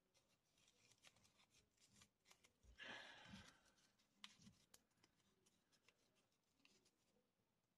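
Near silence, with faint rustling and light ticks of foamiran craft-foam petals being rolled and crumpled between the fingers; a slightly louder rustle about three seconds in.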